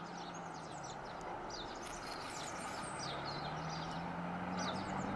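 Outdoor ambience with a steady background hiss, faint high bird chirps scattered throughout, and a faint low hum that rises slightly past the middle.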